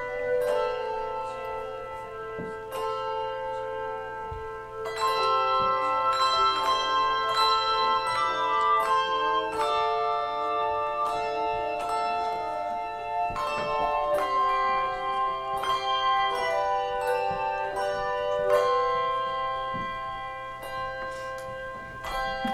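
Handbell choir playing: struck hand bells ringing in overlapping chords of sustained tones, growing fuller and louder about five seconds in and easing off near the end.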